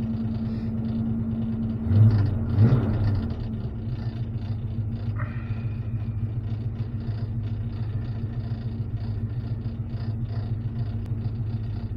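Old pickup truck's engine running steadily while driving, heard from inside the cab. Two loud thumps come about two seconds in.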